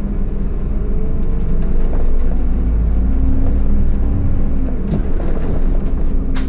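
Solaris Urbino 15 city bus under way, heard from the driver's seat: a steady low engine and road rumble with a faint whine, and a couple of sharp rattles near the end.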